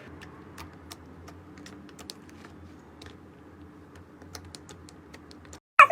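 Slime being handled, giving scattered small clicks and pops over a low steady hum. The sound cuts out briefly near the end.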